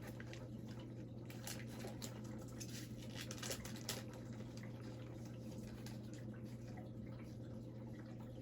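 Faint handling of freshly opened hockey trading cards: soft ticks and light rustles as cards are slid and flipped, most of them in the first few seconds, over a steady low hum.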